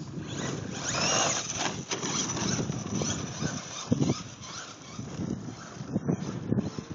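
Radio-controlled car driving on gravel. Its motor whine rises and falls about a second in, over the crunching and scattering of loose stones under its tyres, with a few short knocks later on.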